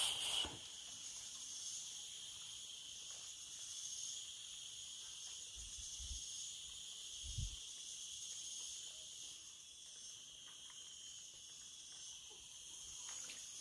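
Steady, high-pitched insect chorus, with one soft low thump about seven seconds in.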